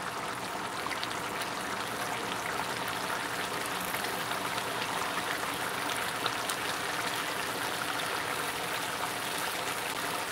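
Fish curry simmering in a frying pan: a steady bubbling sizzle with small pops, as the masala cooks down until the oil separates.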